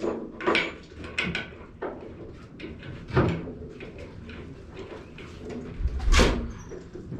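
Knocks, clunks and scrapes from heavy pool table parts being shifted and fitted together during assembly. A few separate knocks come in the first two seconds, a louder one around three seconds in, and a deep heavy thud near the end.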